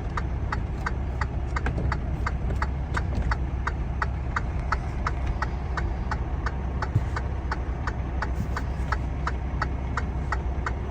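A vehicle engine idling with a steady low hum, under an even, regular ticking about three times a second.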